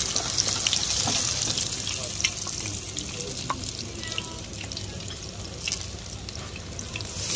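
A grated zucchini fritter frying in hot oil in a pan: a steady sizzle with scattered small crackles that grows gradually quieter.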